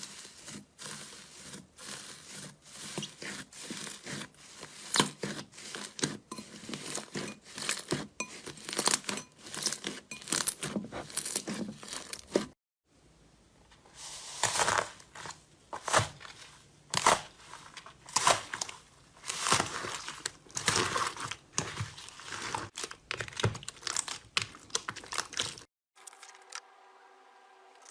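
Slime being squeezed and pressed by hand, giving a dense, irregular run of crackling pops and crinkles. It breaks off for about a second halfway through and picks up again. It stops near the end, leaving a faint steady tone.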